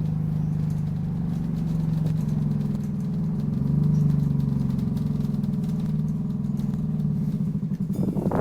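Optare Solo bus's diesel engine running steadily, swelling a little about four seconds in. Near the end it settles into an even, pulsing throb as it drops toward idle.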